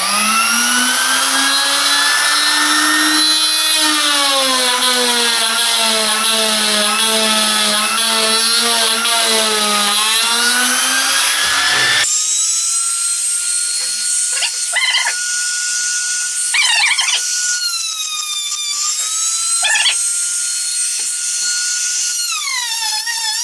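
Trim router running at full speed while cutting grooves in an MDF panel, its whine sagging and wavering in pitch as the bit takes load. About halfway the sound changes abruptly to a thinner, higher steady whine with a few brief noisy bursts, and the pitch drops again near the end.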